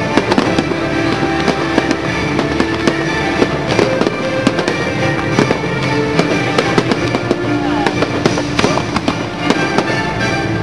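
Fireworks bursting in rapid, irregular cracks and bangs over the show's music playing through loudspeakers.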